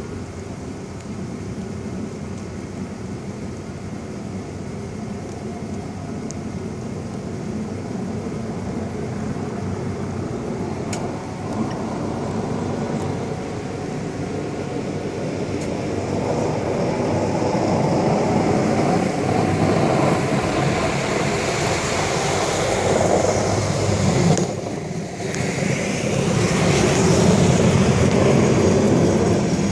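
Traffic on a snow-covered road: vehicles passing on the wet snow, the noise building up through the second half, with a brief drop near the end.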